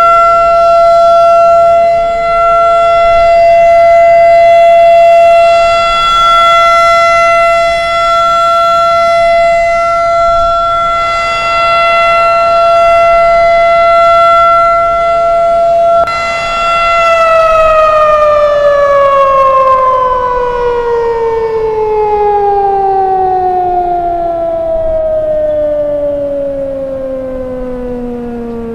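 Federal Signal 2001 outdoor warning siren sounding the full-alert steady tone, loud and swelling slightly every couple of seconds. About 16 seconds in it shuts off and winds down, its pitch falling steadily.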